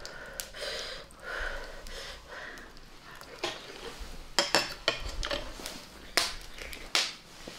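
Close-up eating sounds: chewing and slurping a grilled oyster, then several sharp clinks of a spoon and metal chopsticks against a bowl from about halfway through.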